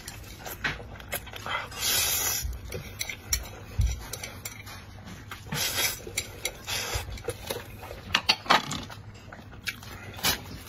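Close-up eating sounds: a person chewing and eating noodles, with sharp clicks of utensils against a dish scattered throughout.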